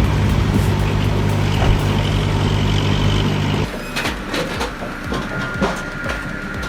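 An engine runs steadily with a low drone, then about halfway through the sound changes abruptly to mechanical clanking and knocks over a thin steady whine, as of a working machine.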